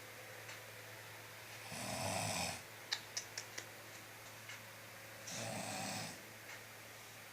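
A sleeping person snoring: two long snores about three and a half seconds apart. A few quick, sharp clicks come between them.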